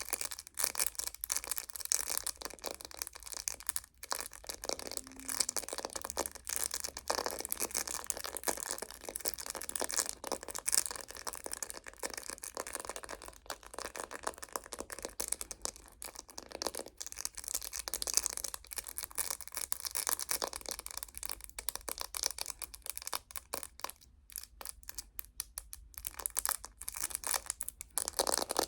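Close-up ASMR fingernail tapping and scratching on a phone case: quick, dense clicks with brief pauses.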